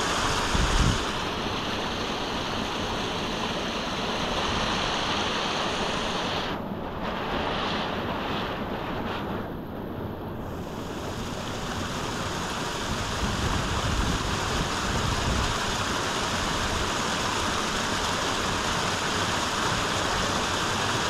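Small rocky brook rushing steadily over little cascades, with wind buffeting the microphone now and then.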